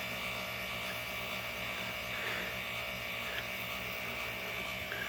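Motor-driven appliance running with a steady hum and a fast, regular pulsing grind: the grinding noise that sets in after a normal start-up.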